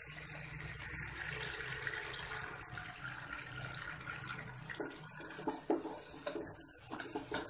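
Mutton pieces frying in hot oil in a pot, giving a steady sizzling hiss. A wooden spatula scrapes and stirs them a few seconds in.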